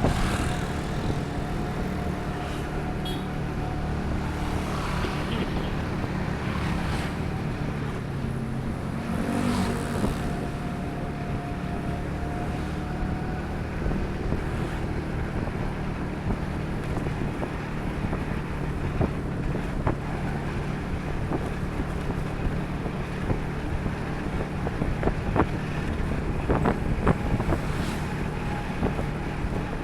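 Steady engine and road noise of a vehicle on the move, with wind buffeting the microphone.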